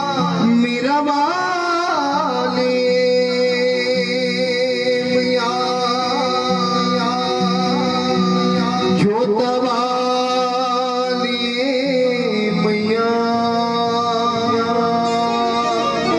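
Music with singing: long held, wavering vocal notes over an accompaniment of sustained instrumental notes that change in steps.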